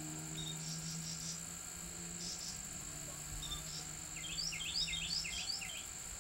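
Outdoor field ambience: insects trilling in a steady high drone, while a bird sings runs of quick downward-slurred chirps, the clearest run about four to six seconds in. A faint low hum lies underneath.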